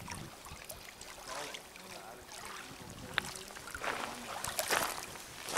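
Small waves lapping and splashing against a pebble lakeshore in irregular bursts, louder about four seconds in.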